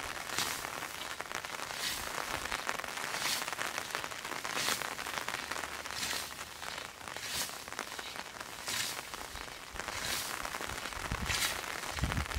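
Hand scythe swishing through wet grass in regular strokes, about one every second and a half, over a steady hiss of rain.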